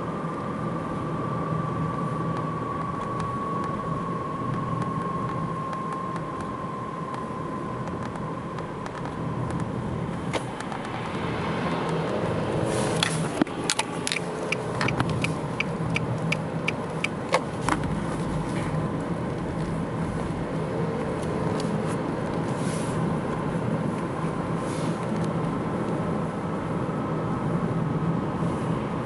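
Nissan X-Trail driving, with steady road noise and a quiet whistle that falls in pitch over the first several seconds as the car slows from about 60 to 50 km/h. The whistle is like a falling aerial bomb and is present in both 2WD and 4WD and in D or N. Midway there is a run of about a dozen evenly spaced clicks, and near the end the whistle comes back faintly, rising.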